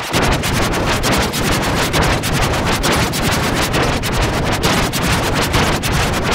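Loud, harsh noise spread across all pitches and flickering rapidly, with no clear tune or voice left in it: a song's audio mangled by heavy distortion effects.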